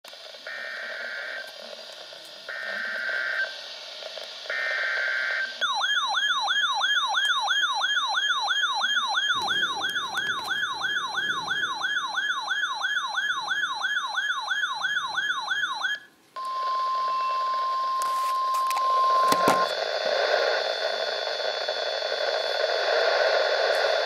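Weather radio receiving an Emergency Alert System Severe Thunderstorm Warning. It plays three short bursts of buzzing SAME data-header tones, then a fast warbling alarm at about three and a half warbles a second for some ten seconds. After a brief cut it sounds the steady single weather-radio attention tone for about three seconds, then radio hiss.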